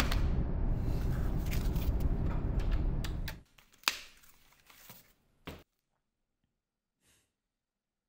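A low rumbling noise with scattered clicks that cuts away about three and a half seconds in, followed by a few short cardboard sounds as a box flap is opened, the first of them the loudest, and then near silence.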